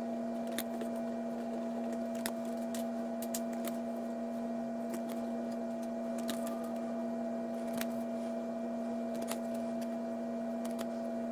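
Steady hum made of two held tones, one low and one higher, with faint scattered clicks from trading cards being handled and flipped.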